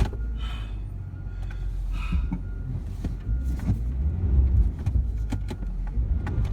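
A motor vehicle's engine runs with a low rumble that grows stronger after about four seconds, while scattered sharp clicks and knocks sound over it.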